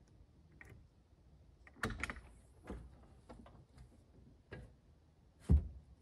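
Clicks and knocks of the front cab door of a Bobcat T590 compact track loader being unlatched and swung open, and of someone climbing in over the bucket, with a sharp thump about five and a half seconds in. The engine is not running.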